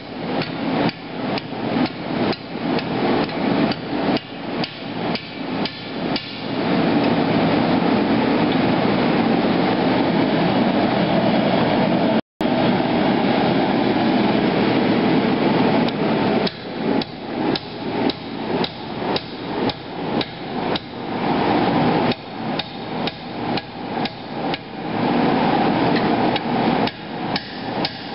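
Hand hammer blows on red-hot steel against an anvil, about two to three a second, rolling a machete tang into a socket handle. The hammering stops for about ten seconds midway while the steel reheats, leaving only the steady rush of the gas forge, which also runs under the blows. The hammering then resumes in quick runs.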